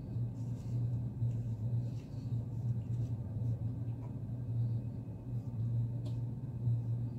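Steady low hum, with a few faint clicks and taps as a plastic statue arm is worked into its shoulder socket.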